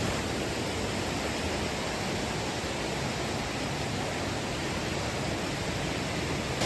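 Rain-swollen waterfall running heavy and close, a steady even rush of falling water.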